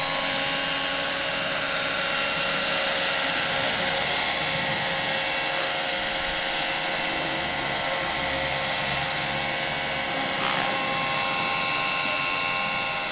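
Large-scale radio-controlled SA 319B Alouette III model helicopter in low flight: a steady, high whine from its drive over the swish of the rotor.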